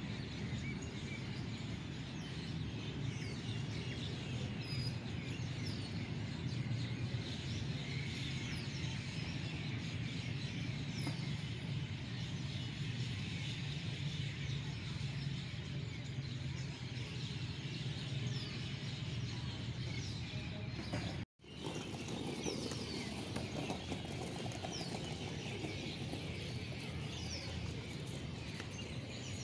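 Many birds chirping, a steady stream of short falling chirps, over a constant low hum of outdoor background noise. The sound cuts out for an instant about 21 seconds in.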